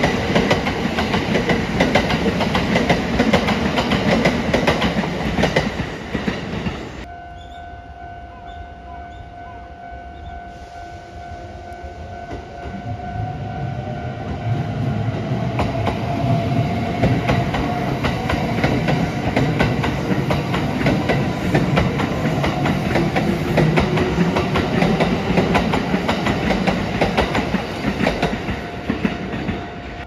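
Electric commuter trains passing over a level crossing, with dense rumble and wheel clatter. A first train passes until a sudden cut about seven seconds in. After it, a steady two-tone crossing warning bell rings, then a Kintetsu 5800 series train comes up and runs past, building from about twelve seconds in.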